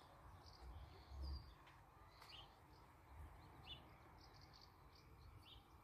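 Near silence: faint outdoor ambience with a few short, high bird chirps scattered through it.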